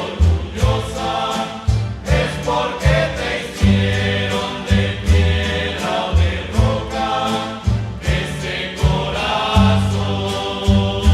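A rondalla playing a romantic ballad: rhythmically strummed guitars and a walking bass line under a group of voices singing together.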